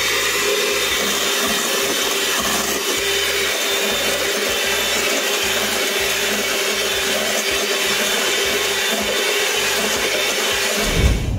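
Electric hand mixer running at a steady speed, its beaters whisking cookie batter in a stainless steel bowl. It cuts off near the end, followed by a low thump.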